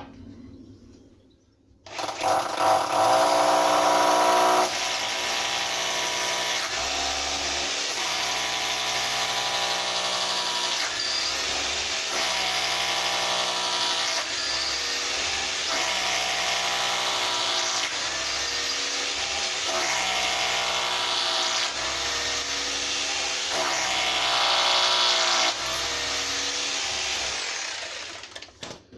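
Electric drill running under load, starting about two seconds in and continuing almost to the end. Its motor pitch shifts every couple of seconds, typical of boring counterbored screw holes into a wooden door frame.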